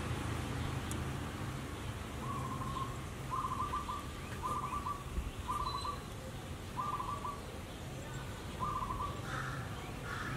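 A bird calling outdoors: a short stuttering note repeated about once a second, beginning about two seconds in, the last couple pitched slightly higher. A low steady hum runs underneath.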